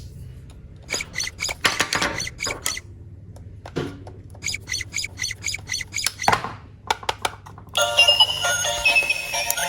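Two quick runs of short, high electronic chirps, about five or six a second, then background music starts near the end.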